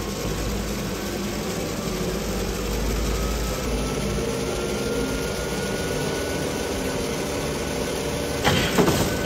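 Treadmill motor and belt running steadily, a faint whine rising slowly in pitch as the belt speeds up, with a LEGO Technic car transporter riding on it. Near the end, a few sharp knocks.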